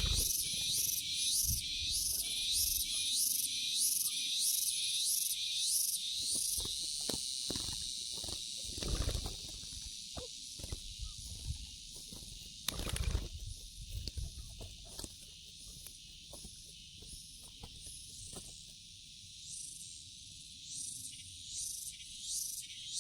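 Insects chirping in a steady pulsing rhythm, about two high-pitched pulses a second, fading out about six seconds in and returning near the end over a constant high hiss. Scattered short knocks and rustles in between.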